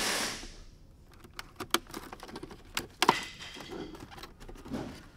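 Scattered small plastic clicks and taps as an instrument cluster is handled and its connector worked in a car's dashboard opening, with one sharper click about three seconds in. A rubbing noise fades out in the first second.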